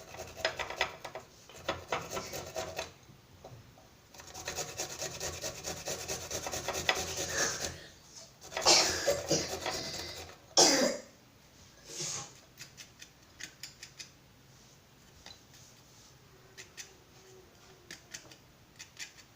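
Garlic cloves being rubbed on a hand grater: repeated rasping strokes, steadiest from about four to eight seconds in. There are two louder bursts around nine and eleven seconds, the second the loudest, then scattered light scrapes and taps.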